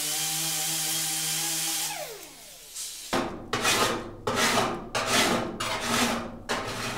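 A small right-angle grinder with an abrasive disc grinding a weld on sheet steel, its motor whining steadily, then spinning down about two seconds in. From about three seconds in, a wooden-handled file is pushed back and forth over the ground weld in about seven strokes.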